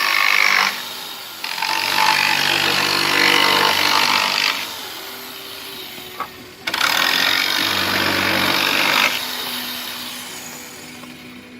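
Jigsaw cutting through 2x4 wood, in three loud cutting runs of about one to three seconds each, with quieter, fading spells between them.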